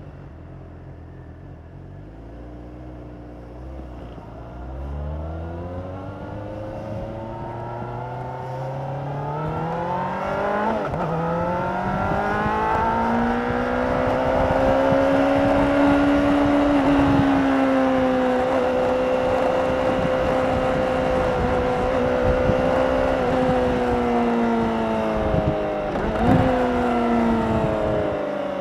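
A 2016 Honda CBR600RR's inline-four engine heard through its stock exhaust. It pulls up from low revs with a steadily rising note, then holds a high, fairly steady revving note, with a brief break in the note about two seconds before the end.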